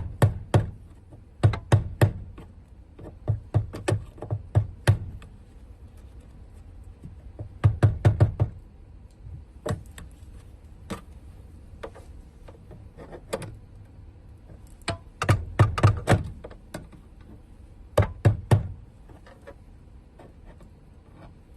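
Fuel pump lock ring being tapped around to seat and lock it on the tank: sharp taps in quick runs of three to six strikes, with pauses between the runs and a few single taps.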